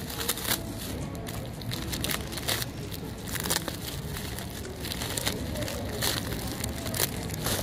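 Black plastic bag wrapping crinkling and crackling as it is pulled apart and unwrapped by hand, with many irregular sharp crackles.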